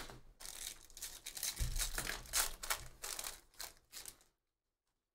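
Crinkling and rustling of foil trading-card pack wrappers and cards being handled, with a few soft thuds on the table; it stops abruptly about four seconds in.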